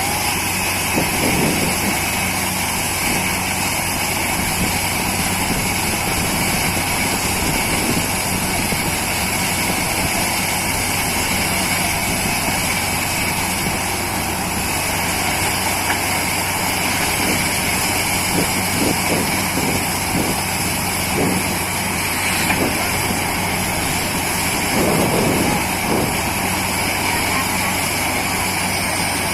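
Borewell drilling rig running steadily, its engine and air compressor droning with a steady high whine over a low hum.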